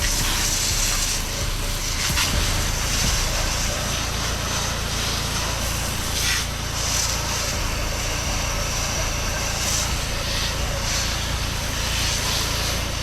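Pressure washer engine running steadily, with the hiss of the spray wand applying cleaning solution at low downstream pressure.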